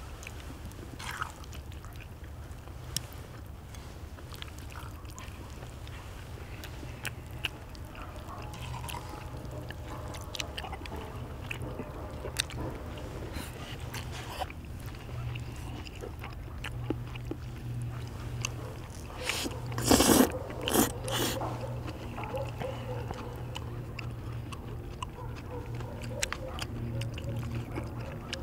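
Close-up eating sounds: people chewing and slurping chewy rice cakes in black-bean sauce, with chopsticks clicking against bowls, over a steady low hum. A few louder sharp noises come together about two-thirds of the way through.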